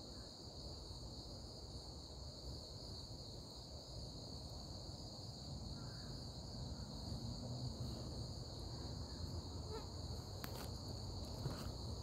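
Steady chorus of insects, a continuous high-pitched trilling drone, over a low rumble, with a couple of short clicks near the end.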